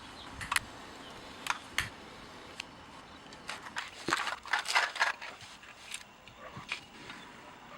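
Scattered sharp clicks and handling clatter, with a denser run of rattling about four to five seconds in, as of tools and wiring being worked by hand.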